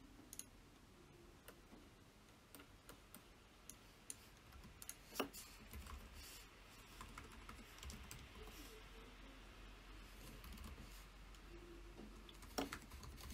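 Faint, irregular tapping of a computer keyboard as words are typed into a search box, with scattered clicks. One click about five seconds in and another near the end stand out.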